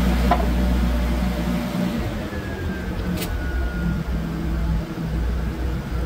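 Engine running steadily with a low hum, with two short sharp metallic taps: one just after the start and one about three seconds in.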